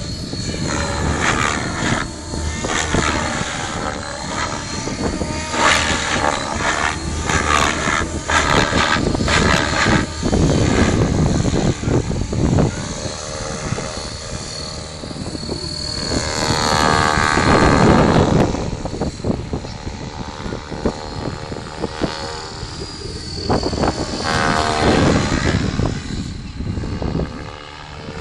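Align T-REX 600 Pro radio-controlled helicopter in flight: its rotor blades whoosh and its drive whines, swelling and sweeping in pitch with each close pass. The loudest pass comes about two thirds of the way through.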